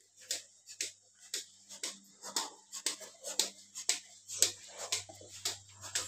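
Milking machine on a buffalo: the pulsator clicking and hissing in an even rhythm, about twice a second, with a low steady machine hum coming in about four seconds in.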